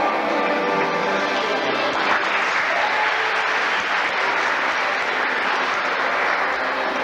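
Audience clapping over background music; the applause swells about two seconds in and dies away near the end.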